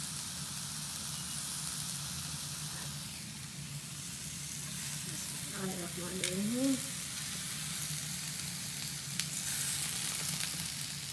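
Grilled peppers, tomatoes and onions sizzling steadily in a hot nonstick frying pan whose cooktop has just been switched off, with a few light clicks of metal tongs.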